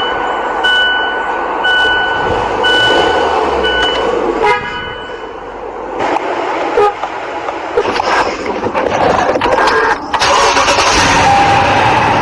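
Vehicle horns over steady traffic noise: a run of short, evenly spaced high beeps about once a second, then a brief horn blast about four and a half seconds in.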